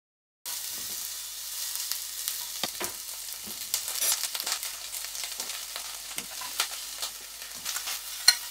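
Sliced onions sizzling in oil in a stainless steel pan, with a steady hiss and scattered crackles and pops; it starts about half a second in. Near the end a metal spoon stirring the onions clinks sharply against the pan.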